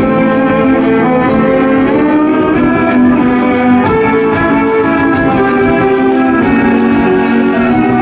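Music: a tune of long held melody notes over a steady beat.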